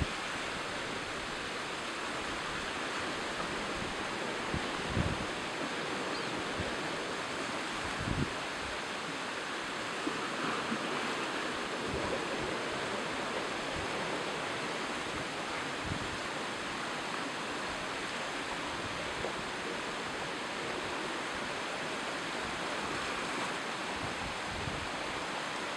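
Steady wash of sea surf breaking around coastal rocks, with a few brief low buffets of wind on the microphone.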